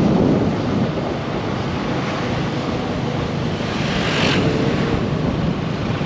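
Wind rushing over the microphone on a moving motorbike, with the bike's engine humming low underneath and a brief swell of hiss about four seconds in.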